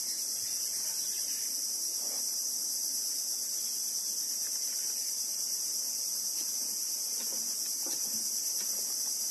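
Steady, high-pitched insect chorus buzzing without a break.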